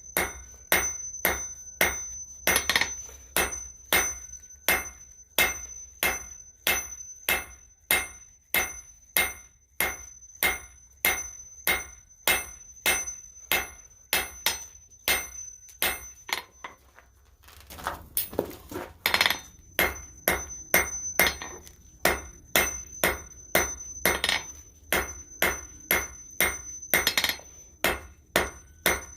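Blacksmith's hammer striking steel on an anvil in a steady rhythm of about two blows a second, with a high ring that carries on between blows. The hammering breaks off for about a second around 17 seconds in, then resumes.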